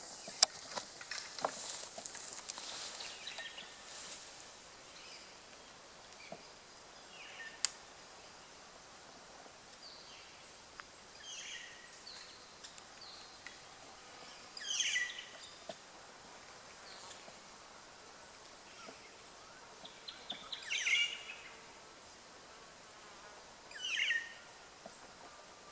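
Bush ambience: an insect buzzing, with light clicks and crackles in the first few seconds, then a few short bird calls spread through the second half, the loudest near the end.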